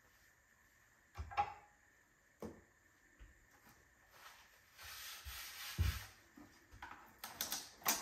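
A few soft knocks on a wooden cutting board, then Saran Wrap plastic film pulled out of its box, rustling and crinkling, with a sharper burst of crinkling near the end.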